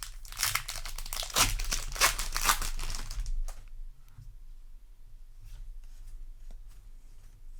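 A foil booster pack wrapper torn open and crinkling for about three and a half seconds, then quieter scattered clicks of trading cards being handled.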